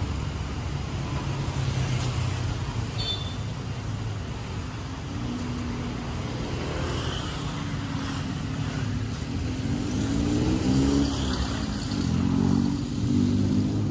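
Street traffic: the steady rumble of vehicle engines passing, with an engine's pitch rising and falling about ten seconds in.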